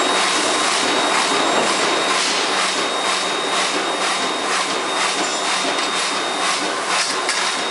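Steady machinery noise of a hot-forging shop: a constant hiss with a low hum and a thin high whine running through it, with no hammer or press blows.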